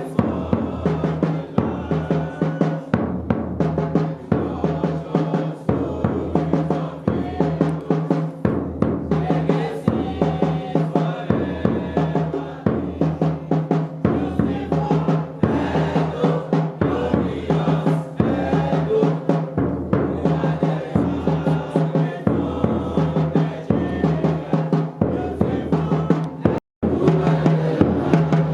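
Music with a steady drum beat and pitched instruments or voices over it, cutting out abruptly for a split second near the end.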